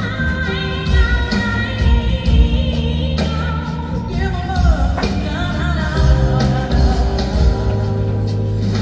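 Pop or rock song with a sung melody over a steady beat.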